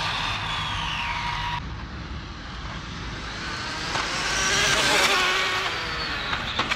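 High-pitched motor and drivetrain whine of an Arrma brushless electric RC car on a speed run. The whine falls in pitch over the first second and a half. A new whine then climbs in pitch and loudness to a peak about five seconds in and falls away as the car passes. A couple of sharp clicks come near the end.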